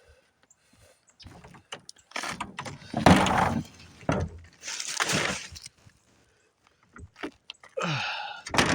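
A bag of trash going into an outdoor trash can: several separate rustling, scraping bursts, with a heavier thud about three seconds in.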